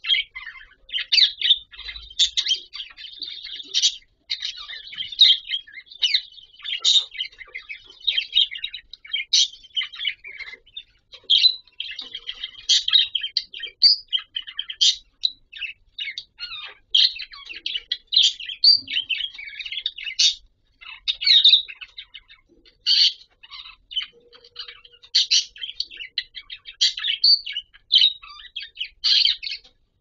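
Budgerigars warbling and chattering: a continuous stream of short, high chirps and squawks.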